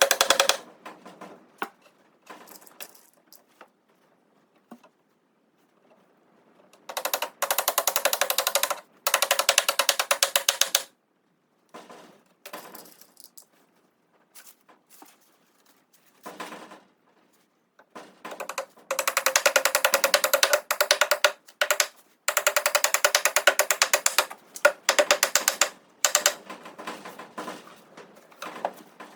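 A handheld power tool running in short bursts with a fast rattling pulse. There are four main bursts of one and a half to three and a half seconds each, with quiet gaps between them.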